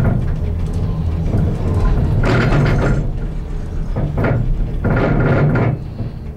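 Detachable gondola cabin in motion: a steady low rumble, broken by three bursts of clatter about two, four and five seconds in as the cabin's grip rolls over a line of wheels.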